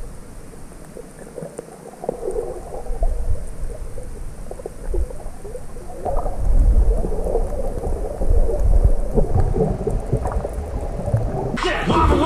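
Muffled underwater sound from a camera held below the surface: a low rumble with irregular sloshing and gurgling of water. Music starts abruptly near the end.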